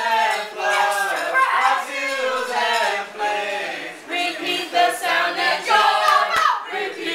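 A small mixed group of women, children and a man singing a Christmas carol together, unaccompanied, reading from song sheets.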